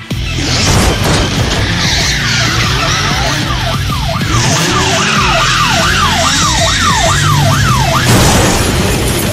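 Loud electronic music with a heavy bass line and a rapid siren-like wail, its pitch sweeping up and down about twice a second for several seconds.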